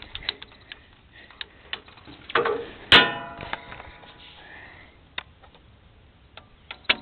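Scattered clicks and knocks from hands and camera moving over a tractor's metal controls, with one sharp metallic clank about three seconds in that rings briefly.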